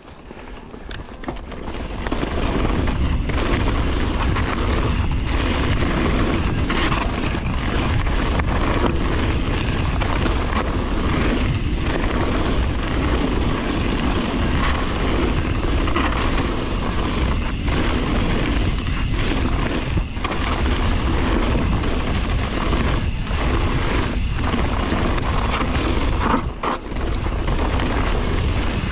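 Mountain-bike ride noise on the bike-mounted camera: steady wind buffeting the microphone with a deep rumble, over tyres rolling and the bike clattering on a rocky gravel trail. It fades in over the first couple of seconds.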